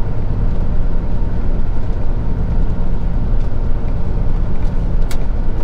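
Peterbilt 379 semi truck heard from inside the cab while driving: a steady diesel engine hum under road noise, with a single sharp click about five seconds in.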